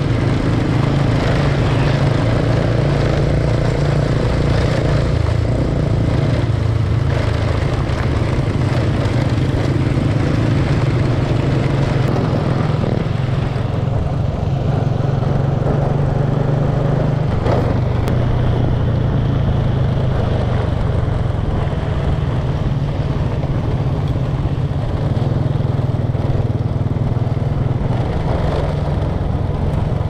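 Motorcycle engine running steadily under way, with a constant low hum and wind and road noise on the camera.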